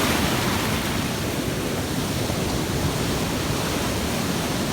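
Steady rushing noise of sea surf and wind at the shore.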